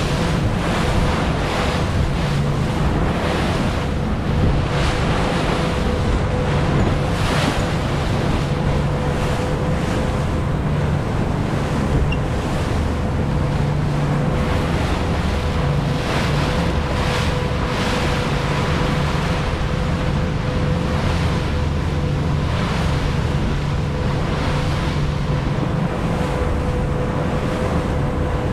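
Deck boat under way through choppy waves: a steady engine hum under wind rushing over the microphone, with water splashing against the hull every second or two.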